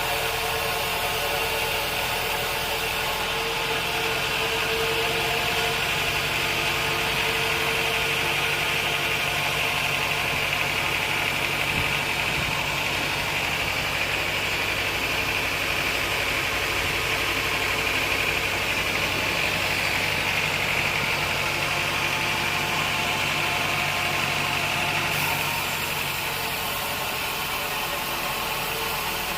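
Sawmill machinery running steadily with a constant mechanical hum and whine. The sound changes slightly about three seconds in and again near the end.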